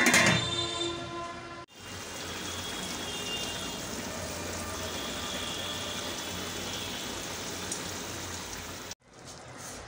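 Chicken pieces simmering in their own released juices in an aluminium pot, bubbling steadily as the masala is cooked down. A brief loud scrape with a falling ring opens it, as a spatula works against the pot.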